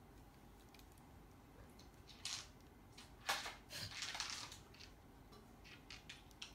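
Thin plastic bag crinkling as a cat sitting inside it shifts, in a few short rustling bursts: one about two seconds in, a longer spell around the middle, and small crackles near the end.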